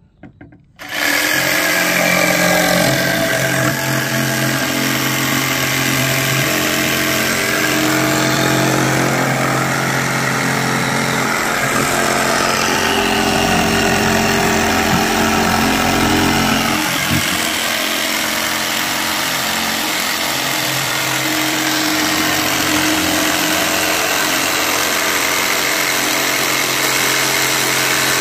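Cordless jigsaw cutting a curve through plywood, held upside down beneath the sheet. It starts about a second in and then runs steadily through the whole cut.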